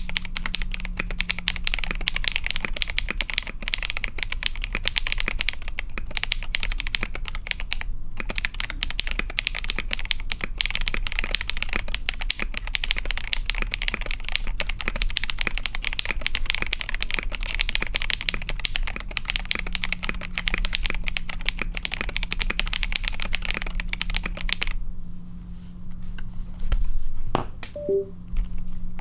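Continuous fast typing on a KBD67 Lite mechanical keyboard with lubed KTT Rose linear switches in a POM plate and KAT-profile keycaps: a dense stream of key clacks. The typing stops about four seconds before the end, and a single loud thump follows a couple of seconds later.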